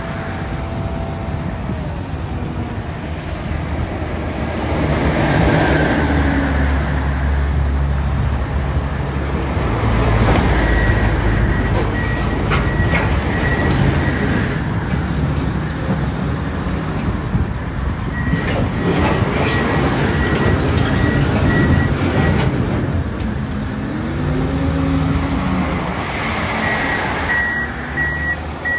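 Diesel engines of heavy earthmoving machinery (bulldozer, wheel loader, dump trucks) running under load and revving up and down. A reversing alarm beeps in three spells: about a third of the way in, past the middle, and again near the end.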